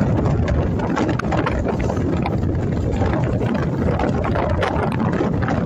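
A ship's engine droning steadily, with wind buffeting the microphone on the open deck.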